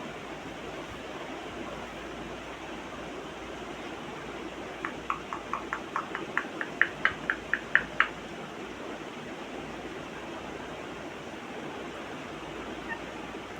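African grey parrot giving a quick run of about a dozen short, pitched notes, roughly four a second, alternating between a lower and a higher pitch and growing louder over about three seconds, over a steady hiss.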